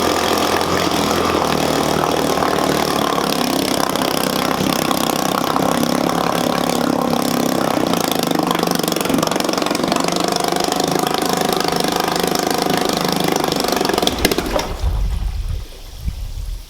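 Vintage 3 hp Sea-Bee outboard motor running loud and steady, its freshly cleared carburettor jet now feeding it fuel. It cuts out about 14 seconds in.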